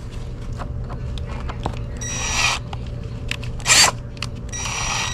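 Power drill running in short bursts, each about half a second long, as a Time-Sert drill bit cuts into aluminum, the bit getting a lot of bite.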